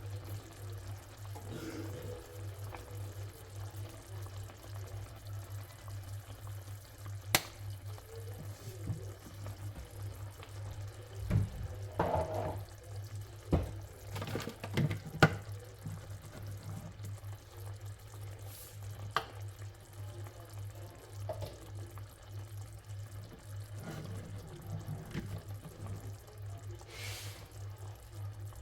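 Water running from a tap into a kitchen sink over a steady low hum, with scattered knocks and clatter of things being handled, loudest in a cluster about halfway through.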